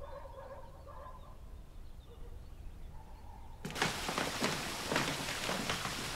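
Footsteps knocking on the wooden planks of a suspension footbridge over a steady rushing noise, starting suddenly about four seconds in. Before that, only faint wavering tones.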